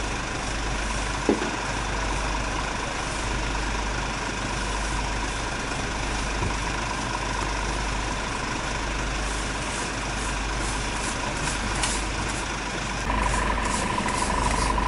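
Scania fire engine's diesel engine idling steadily. About thirteen seconds in, a steady high whine joins it, along with scraping strokes.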